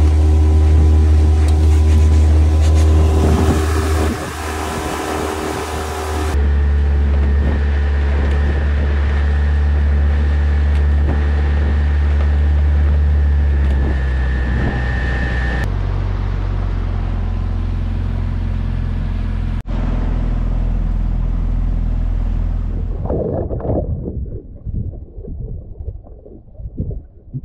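Tohatsu 9.8 hp outboard motor running steadily at speed on a small inflatable boat. The sound shifts abruptly a couple of times and fades out near the end.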